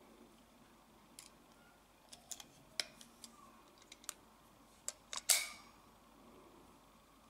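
Ruger GP100 revolver being handled: a series of light metal clicks as the cylinder is swung out and turned, then a louder snap about five seconds in as it is latched shut in the frame.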